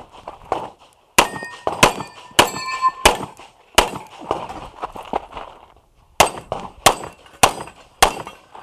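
Pistol shots fired rapidly at steel targets, about nine in all: a string of five roughly two-thirds of a second apart, a pause of about two seconds, then four more. Hit steel plates ring with a clear metallic tone after shots in the first string.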